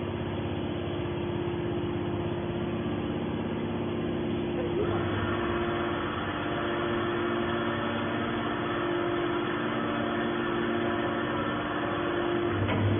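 Scrap metal baler running, its hydraulic power unit giving a steady pitched hum. A harsher, brighter machine noise joins about five seconds in.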